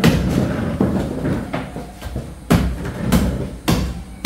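A cleaver chopping on a cutting board: about seven sharp knocks, irregularly spaced about half a second to a second apart.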